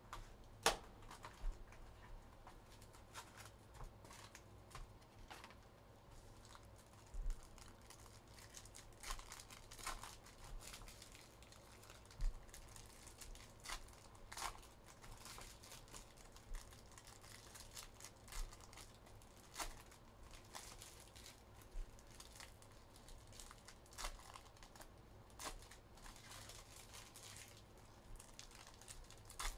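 Packaging of a box of Upper Deck Synergy hockey cards being torn open and crinkled by hand: scattered short crackles, tears and small taps, a few of them sharper and louder.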